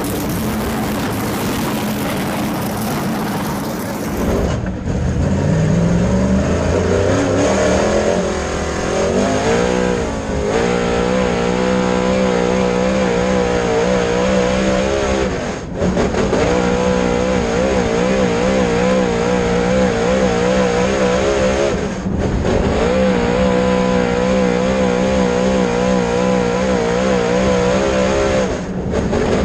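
Dirt late model race car's V8 engine at speed on a dirt oval, its revs rising and falling in a repeating pattern lap after lap; the team reports the engine misfiring in hot laps and qualifying. The first few seconds hold a rougher, more even engine noise before the steadier rising-and-falling engine note comes in.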